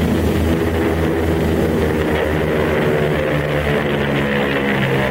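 Propeller engines of Junkers Ju 87 Stuka dive bombers droning steadily in formation flight.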